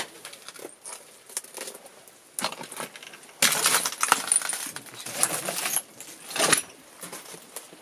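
Footsteps crunching and clinking over rubble of broken roof tiles, glass and burnt debris. The crunches come thickest and loudest a little over halfway through, with a last loud one a second later.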